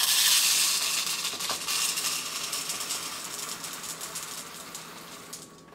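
Dry popcorn kernels pouring from a bag into a measuring cup: a dense rattle of many small clicks that starts loud and gradually thins out.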